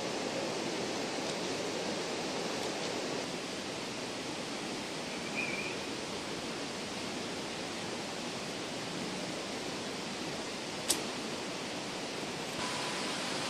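Steady rushing outdoor noise, with a single sharp click a little before the end.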